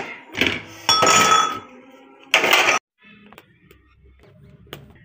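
Ceramic plates and glass dishes clinking and rattling as they are handled and washed by hand, with a short ringing clink about a second in. After about three seconds this stops and only faint background noise with a few light clicks remains.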